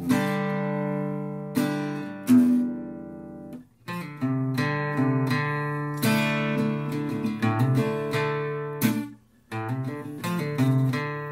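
Acoustic guitar music: chords plucked and strummed, each ringing out, with two brief pauses.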